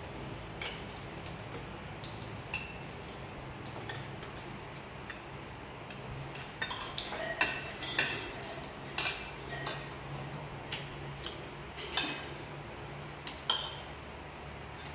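Metal spoons clinking and scraping against ceramic plates and bowls while eating: scattered light clinks, growing busier and louder from about halfway through.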